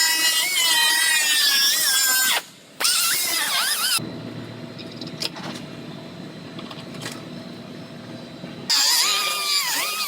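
High-pitched whine of a cut-off tool cutting through quarter-panel sheet metal, its pitch wavering as the wheel bites, stopping and restarting; in the middle a lower, rougher steady sound takes over for several seconds.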